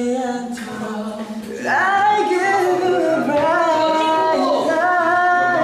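Male pop vocalists singing a cappella, a slow ballad line that leaps up to a high held note about a second and a half in, followed by more long held notes.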